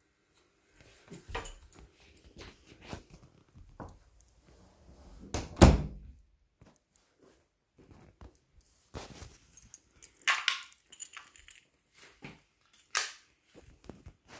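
Scattered knocks and clunks with one loud thud about five and a half seconds in, as an upright freezer's door is shut.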